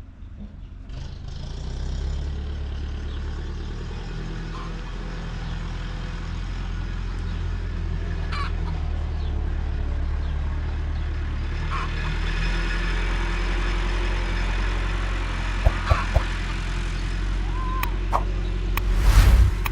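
Engine running with a steady low rumble that comes in about a second in and slowly grows, with a few sharp knocks near the end.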